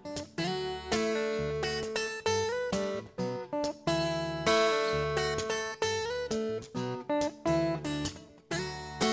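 Acoustic guitar played solo: chords struck in quick succession, each left to ring before the next.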